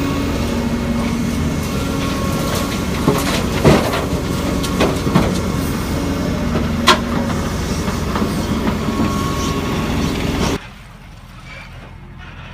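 Heavy earthmoving machinery running steadily, with several sharp metallic clanks in the middle. Near the end the sound drops suddenly to a much quieter background.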